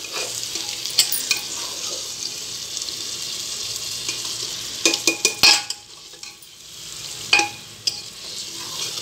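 Thick masala of peas, potatoes and tomatoes sizzling in a pressure cooker while a metal spatula stirs it. The spatula scrapes and knocks against the pot several times, loudest about five and seven seconds in.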